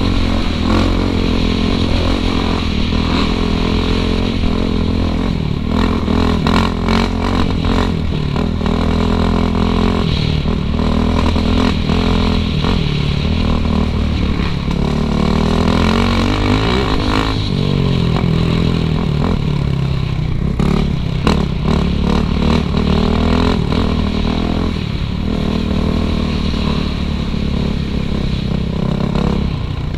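Suzuki RM-Z450 single-cylinder four-stroke dirt bike engine being ridden, its pitch rising and falling again and again as the throttle opens and closes, with scattered clatter and knocks from the bike over rough ground.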